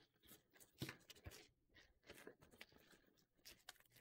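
Faint crinkling and crackling of clear plastic shrink wrap being pulled off a laptop cooling pad, in scattered short crackles.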